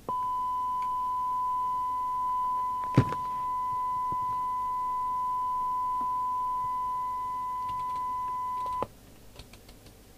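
Steady 1 kHz test tone from the CB radio's speaker: the receiver demodulating a signal generator's test signal during sensitivity and squelch testing. It comes on suddenly, runs for about nine seconds and cuts off suddenly, with a single knock about three seconds in.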